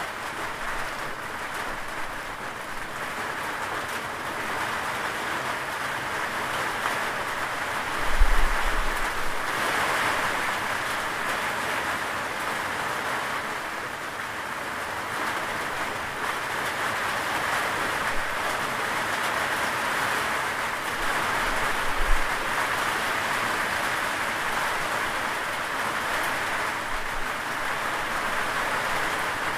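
Rain falling steadily, a dense even hiss of many drops, with two brief low thumps, one about eight seconds in and one about twenty-two seconds in.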